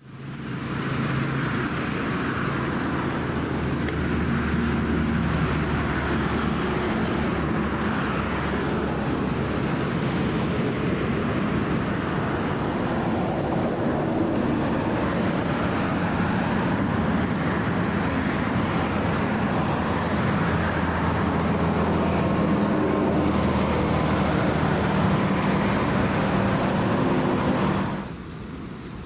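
Steady road traffic noise, a continuous rumble with the low hum of vehicle engines. It drops away sharply near the end.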